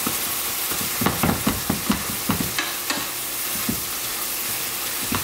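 Ground beef frying in its undrained grease in a skillet, with a steady sizzle, while a wooden spatula stirs and knocks against the pan. The spatula strokes come quickly in the first two seconds or so, then only now and then.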